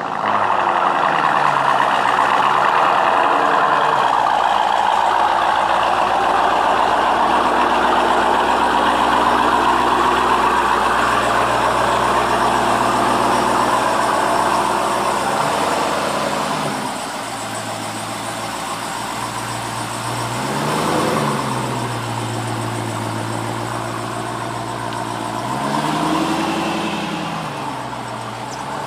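Jeep Grand Cherokee Trackhawk's supercharged 6.2-litre V8 running at idle, with the revs rising and falling a few times in the second half.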